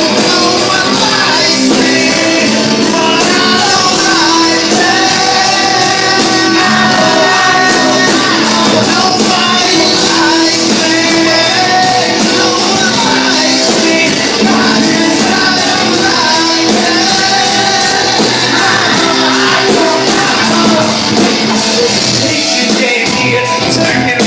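Live rock band playing loud with a fast, steady beat while the frontman sings and shouts into a microphone.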